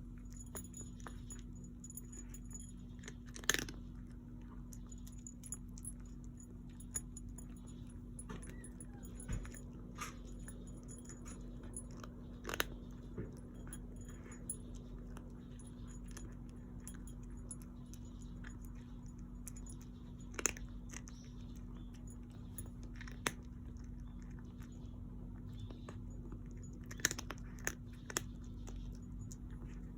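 Scattered single sharp clicks and faint crunching at irregular intervals over a steady low hum.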